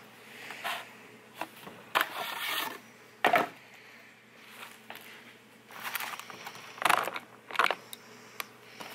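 Irregular metal clanks, knocks and rattles of a Stihl pole-saw head being taken apart by hand: the chain cover comes off, and the bar and loose saw chain are lifted off the sprocket.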